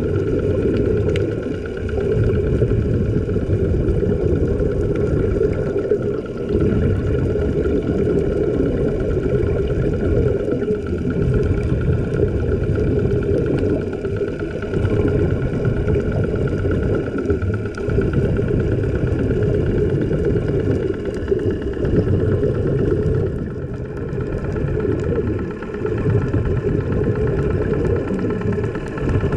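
A steady low underwater rumble, swelling and easing every few seconds, with faint steady tones above it.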